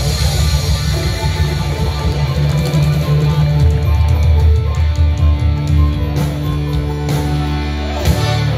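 Live rock band with electric guitars, bass, drums and accordion playing loud through a PA, heard from the crowd. In the second half the chords are held steady, and a sharp hit lands near the end.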